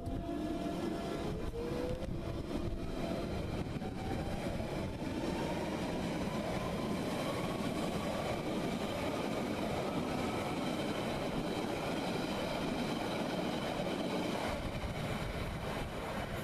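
London Underground Central line 1992 Stock train accelerating away, its traction motors giving a rising whine over the rumble of wheels on rail. The noise drops abruptly about fourteen seconds in as the train draws off.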